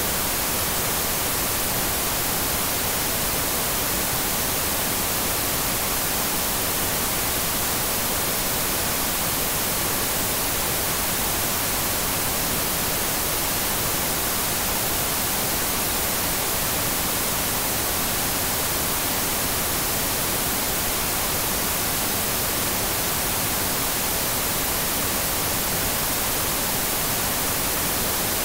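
TV static: a steady, unchanging hiss of noise, strongest in the high end.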